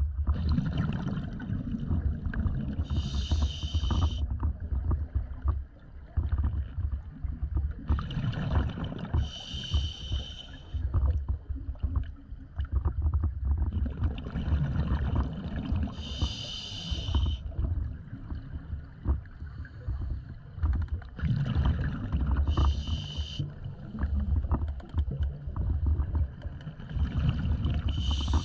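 Scuba diver breathing through a regulator underwater: a hissing inhalation about every six seconds, five breaths in all, with the low rumble and gurgle of exhaled bubbles between them.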